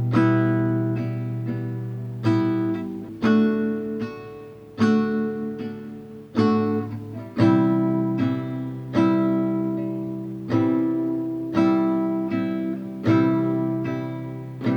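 Acoustic guitar strummed slowly, one chord struck about every second to second and a half and left to ring out between strokes, changing chord every few strums through the song's E minor, D major and C major progression.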